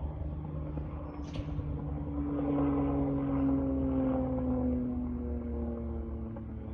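Propeller aircraft flying past: its engine drone swells about two seconds in and fades again, its pitch slowly dropping as it goes by, over a steady low rumble.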